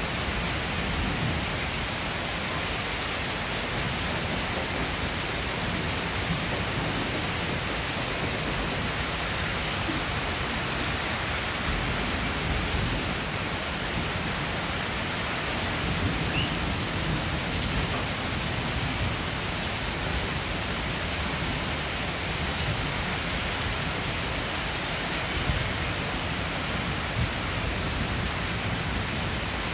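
Steady rain falling, an even hiss with no let-up, heard from inside a wooden house under its sheet roof.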